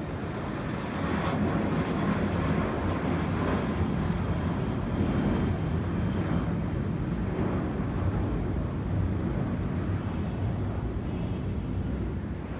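Distant jet airliner engines, a steady rush that swells about a second in and then holds.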